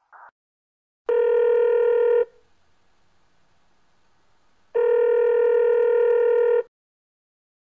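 Mobile phone ringing: two long, steady, buzzy rings, the first about a second long and the second about two seconds long, with a pause of about two and a half seconds between them.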